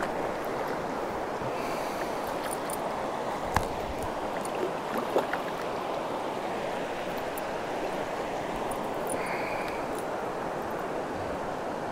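Steady rush of stream water running over rocky shoals, with one sharp click about three and a half seconds in and two smaller knocks a second or so later.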